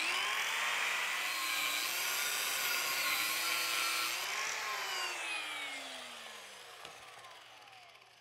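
Small electric angle grinder with a cut-off wheel starting abruptly and cutting through a bronze rod, marking a keel bolt's length, its pitch dipping slightly under load. About four seconds in it is switched off and winds down with a falling whine that fades away.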